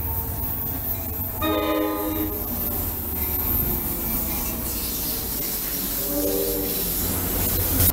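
Metro-North diesel locomotive passing close by with its engine rumbling, sounding its horn twice: a blast of about a second, then a shorter one about six seconds in.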